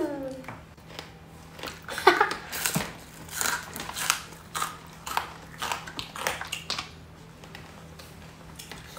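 A hard kerupuk cracker being bitten and chewed, in irregular sharp crunches through the middle of the stretch.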